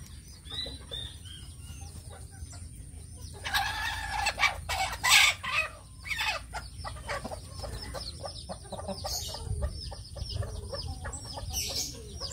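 Brahma chickens clucking in their coop, with a rooster crowing one long crow about three and a half seconds in, the loudest sound. Small high chirps repeat throughout.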